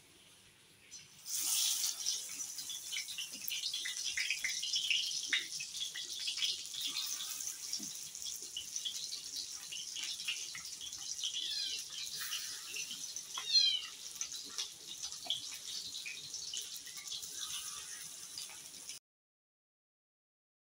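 Batter-coated pumpkin-flower fritters sizzling and crackling in hot oil in an iron kadai. The sizzle starts about a second in and cuts off abruptly a couple of seconds before the end.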